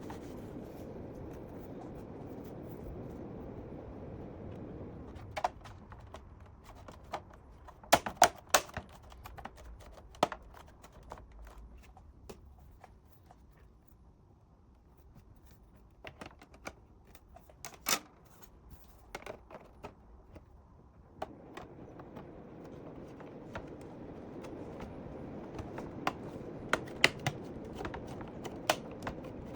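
Scattered clicks and taps of hard plastic and small parts being handled, a few of them sharp and loud, over a steady low rushing background that drops away for the middle stretch and returns near the end.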